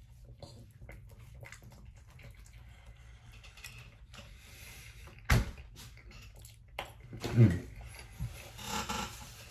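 A person chewing a bite of hard-shell taco close to the microphone, with faint crunching clicks. There is one sharp knock or crunch about five seconds in, and two brief hums of the voice near the end.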